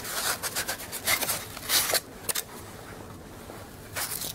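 Cardboard box and styrofoam packing rubbing and scraping as a magnet is slid out of them, in a run of dense scrapes over the first two seconds and a shorter spell near the end.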